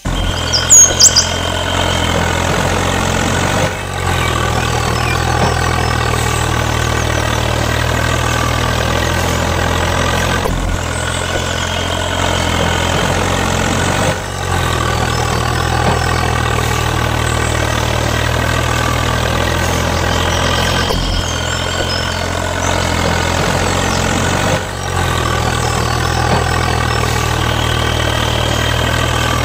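Tractor engine running steadily at idle. It is a recorded engine sound that repeats about every ten seconds.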